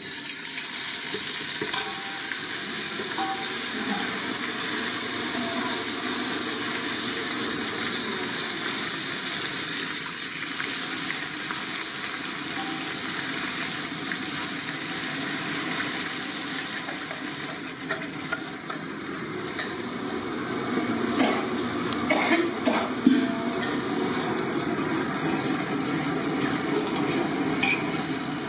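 Hot oil sizzling as ingredients fry in an aluminium pot, stirred with a steel ladle. A few sharp clinks of the ladle against the pot come about three-quarters of the way through.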